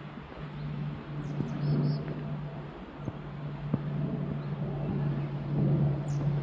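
A motor vehicle's engine running with a steady low hum, slowly growing louder, with a few brief high bird chirps about a second and a half in and again near the end.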